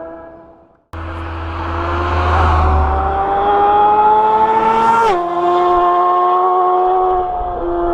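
Suzuki GSX-R750's inline-four engine through a full Akrapovic exhaust, pulling hard in gear. Its pitch rises steadily, then drops sharply about five seconds in as the bike shifts up, and it carries on. The engine sound starts about a second in, after a brief silence.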